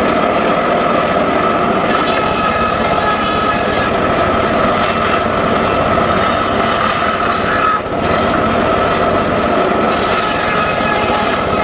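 Homemade circular saw bench running and sawing sengon laut wood: a loud, steady whine that dips briefly about eight seconds in.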